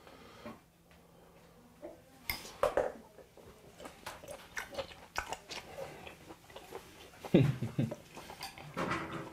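A man chewing a mouthful of raw beef close to the microphone: wet smacks and clicks of chewing, with a brief low hum of the voice about seven seconds in.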